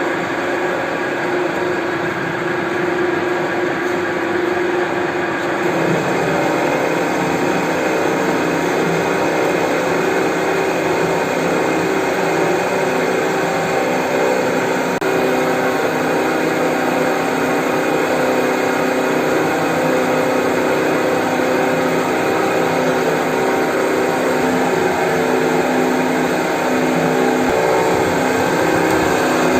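Horizontal metal-cutting bandsaw running steadily: a motor hum with several steady tones. The tone shifts about six seconds in and then holds.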